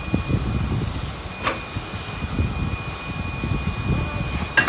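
Steam locomotive and tender backing slowly onto a carriage for coupling, with a low rumble and a thin, steady hiss of steam. A metallic clank comes about a second and a half in, and a louder clank near the end as the buffers and coupling meet.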